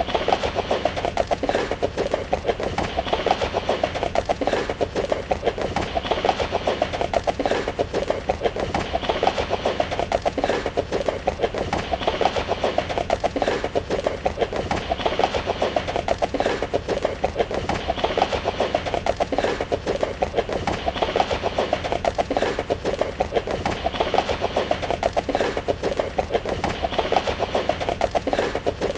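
A horse galloping: a steady, unbroken run of rapid hoofbeats.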